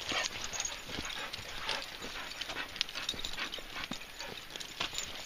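Footsteps crunching and tapping irregularly on a rough path.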